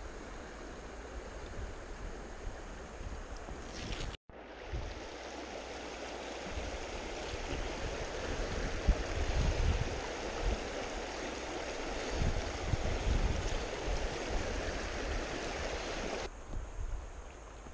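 Shallow mountain river rushing over a rocky riffle, a steady hiss of flowing water, with gusts of wind buffeting the microphone. The sound breaks off for an instant about four seconds in, and the rush grows fainter near the end.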